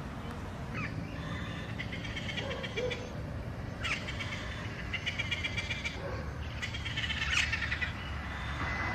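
Feral parrots calling: three bursts of rapid, raspy chattering, each about two seconds long, over a steady low rumble.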